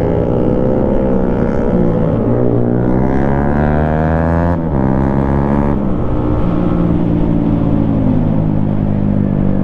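Motorcycle engine running under acceleration, its pitch climbing and then dropping sharply as it shifts up, about four and a half seconds in and again about six seconds in, before settling to a steadier pitch.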